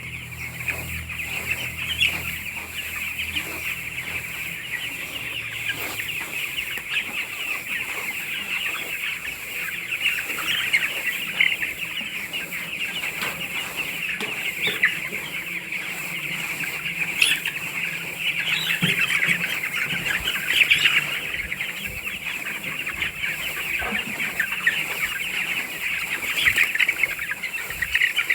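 A large flock of chickens calling all at once: a dense, unbroken chorus of overlapping chirps and clucks.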